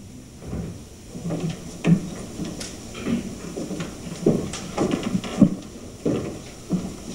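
Irregular soft knocks and thuds of footsteps and handling noise, picked up by a lectern microphone.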